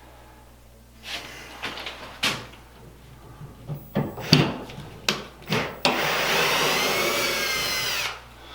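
A series of knocks and clunks as wood and tools are handled, then a small power tool's motor runs steadily for about two seconds and stops.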